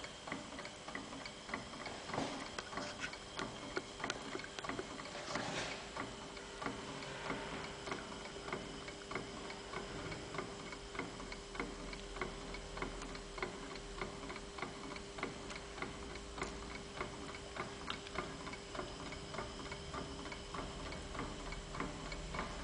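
Stirling engine with a Ross yoke mechanism running, its linkage giving off a steady, rapid, even ticking over a faint hum.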